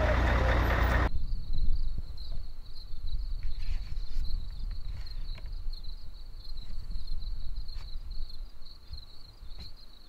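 Crickets chirping in a steady, pulsing high trill, with a low rumble beneath and a few faint clicks. A louder stretch with a low steady hum cuts off abruptly about a second in.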